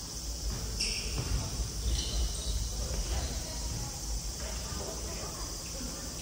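Players' shoes squeaking on a wooden gymnasium floor during a futsal game: two short, sharp squeaks in the first two seconds and fainter ones later, over a steady high-pitched hiss and distant voices in a large hall.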